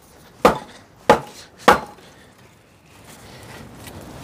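Firewood being split on a wooden chopping block: three sharp chops, a little over half a second apart.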